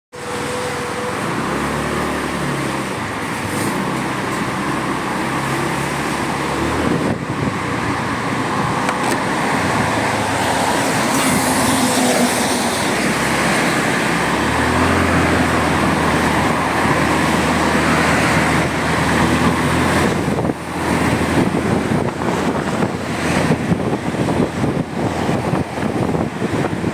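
Motorcycle engine running as the bike is ridden along a road, with road and wind noise; the engine note shifts a few times, and wind buffets the microphone more in the last several seconds.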